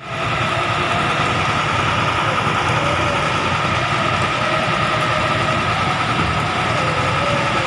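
Concrete mixer truck running steadily while it discharges concrete down its chute, its engine rumbling under a steady high whining tone.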